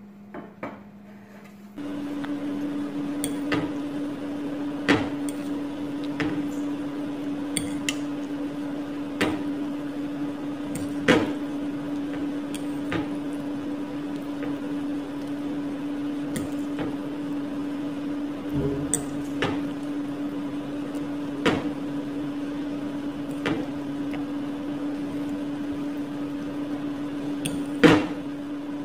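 Metal fork clinking against a ceramic bowl every second or two while tossing noodles, with a louder clink near the end, over a steady low electrical hum that sets in about two seconds in.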